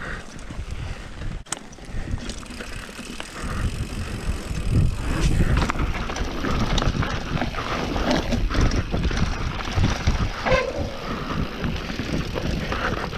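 Mountain bike rolling down a dirt trail, tyres and frame rattling over the ground, getting louder about three and a half seconds in as it picks up speed.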